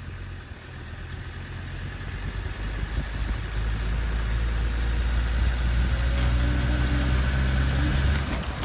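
Car engine running and growing steadily louder, then cutting off abruptly near the end.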